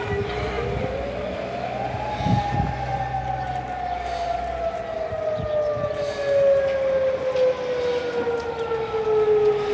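Civil defence warning siren wailing: its pitch climbs over about two seconds, then slowly falls for the next seven or so.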